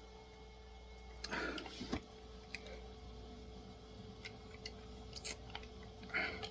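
Small clicks and short scraping sounds of handling a plastic display base and small tools while working at a stubborn screw, one scrape about a second and a half in and another near the end, over a faint steady hum.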